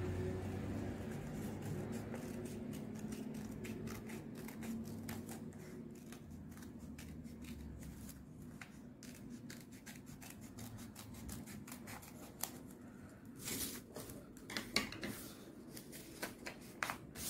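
Small children's scissors cutting folded origami paper: a run of faint, quick snips with paper rustling as the sheet is turned, a few louder snips near the end. A low background hum fades out over the first half.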